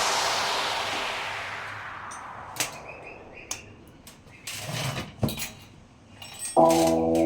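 Background music ends in a fading hiss, then a few scattered sharp clicks and knocks, and music starts again loudly near the end.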